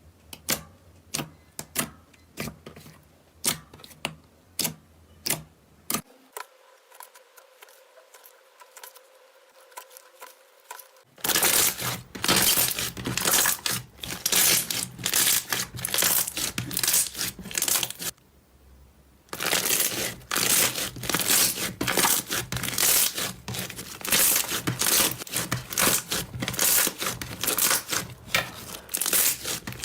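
Slime being squeezed and stretched by hand, giving sticky crackling and popping clicks. It starts as scattered pops about twice a second, then about eleven seconds in turns into dense, loud crackling, which stops briefly and picks up again.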